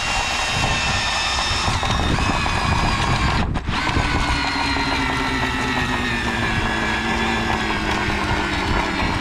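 Power drill turning a hay core-sampling probe into a wrapped round bale. The motor whines steadily and slowly drops in pitch, with a brief break about three and a half seconds in.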